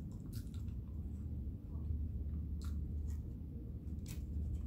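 A person chewing and eating french fries, with a few sharp clicks, over a steady low hum.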